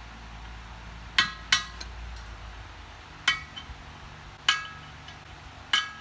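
Metal struck hard five times at uneven intervals, each strike a sharp clink that rings briefly.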